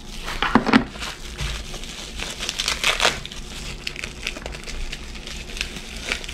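Plastic bubble-wrap packaging crinkling and crackling irregularly as hands handle and pull open the bag.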